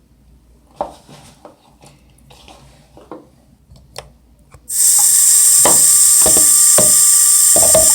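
Faint clicks and handling noises, then about halfway through a loud, steady rush of water from a running tap begins, with a few knocks under it.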